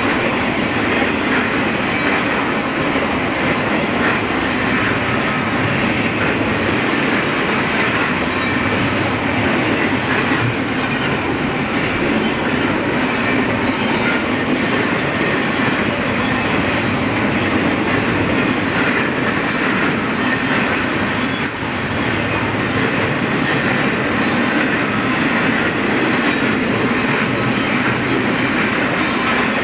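Double-stack intermodal freight train's well cars rolling past, a steady noise of steel wheels on the rails with some clickety-clack.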